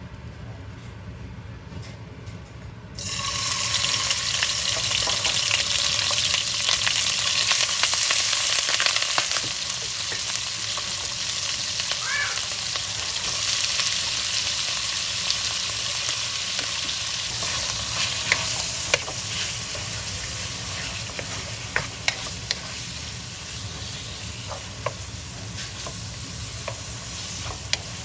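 Food frying in hot oil in a pan: a loud sizzle starts suddenly about three seconds in, is strongest for several seconds, then slowly settles, with scattered sharp clicks later on.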